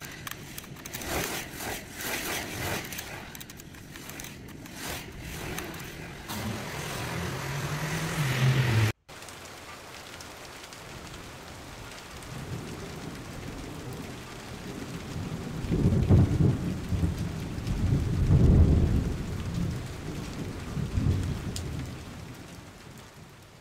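Steady rain with low rolls of thunder, the loudest two a little past the middle and a weaker one after. Before that, a run of sharp clicks and crackles over a rising noise that cuts off abruptly about nine seconds in.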